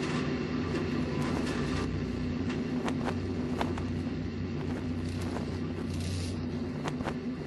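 A steady, low engine drone with a few scattered clicks.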